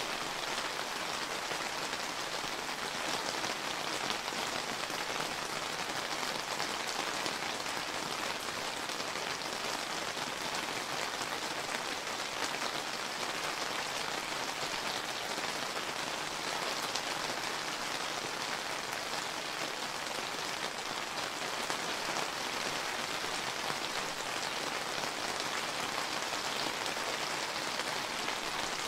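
Steady summer rain falling, a dense even patter of many drops striking a surface.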